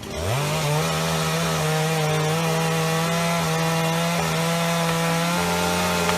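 Two-stroke chainsaw revving up in the first half second, then held at a steady high speed while it cuts wood.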